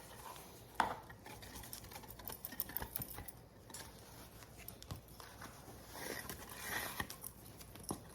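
Ribbon being handled and worked by hand: light rustling and crinkling with scattered small clicks and taps.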